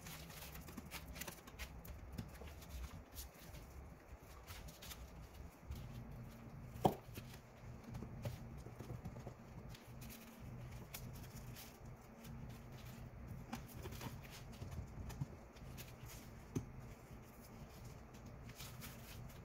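Faint handling noise as stone ledger tile panels are set and gloved hands work over a paper-covered countertop: scattered light clicks and knocks, the sharpest about seven seconds in, over a low steady hum.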